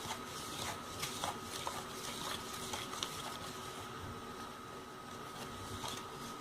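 A spoon stirring salt dough of flour, salt and water in a bowl: faint scrapes and light taps, most of them in the first half, over a steady faint hum.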